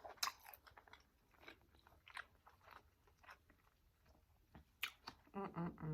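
Close-miked eating sounds: soft chewing, biting and wet mouth clicks, quiet and irregular. Near the end comes a short voiced sound, like a brief hum.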